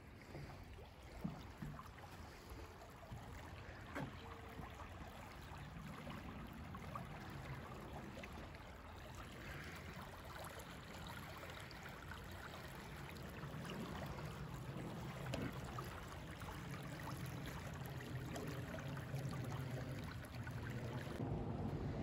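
Small creek running over a shallow, rippling bed: a steady rushing hiss, with a low rumble that grows louder through the second half. A few short knocks sound early on, about a second and four seconds in.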